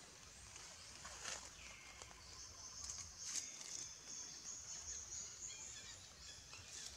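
Faint outdoor ambience: a high, steady buzz sets in about two seconds in and fades near the end, with a couple of faint rustles or taps.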